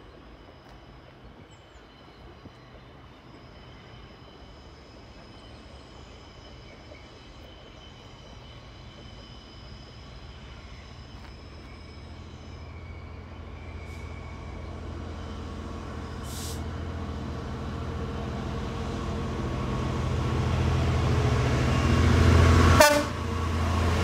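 GBRf Class 66 diesel-electric locomotive, with its two-stroke V12 engine, approaching at the head of a container freight train. The engine's low drone grows steadily louder as it nears, and a brief, sharp, loud burst comes shortly before it draws level.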